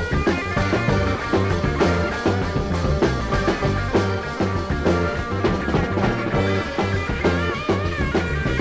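Background rock music with a steady beat and a bass line.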